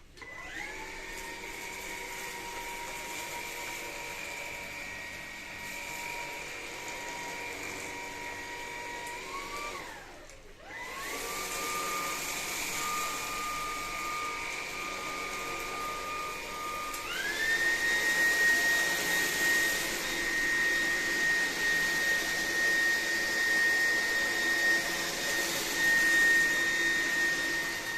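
Xiaomi Mi Vacuum Cleaner G9 cordless stick vacuum's motor whining as it spins up and runs steadily. About ten seconds in it winds down and spins back up to a higher pitch. A little past halfway it steps up again to a louder, higher whine, as it moves to a higher power setting.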